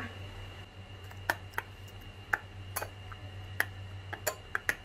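Metal spoon stirring a watery chili-garlic dipping sauce in a glass bowl, clinking lightly and irregularly against the glass, about eight small ticks in a few seconds, over a faint steady hum.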